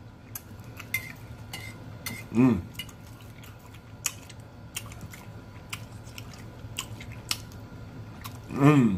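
Close-miked eating: a fork clicking against a plate and teeth, with mouth chewing and lip-smacking clicks throughout. Two short hummed "mm" sounds of enjoyment, about two and a half seconds in and near the end.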